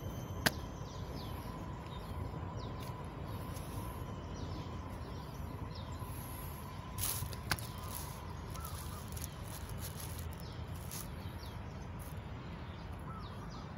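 Outdoor rural ambience: faint bird chirps repeating over a steady low rumble. A sharp click comes near the start and another about seven and a half seconds in, and a brief rush of noise sounds just before the second click.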